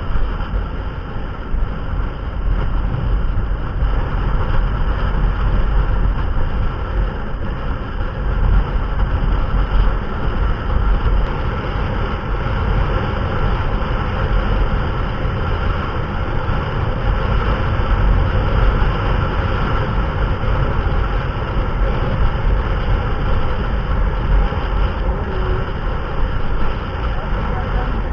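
Motorcycle running steadily at road speed, with wind rushing over the microphone.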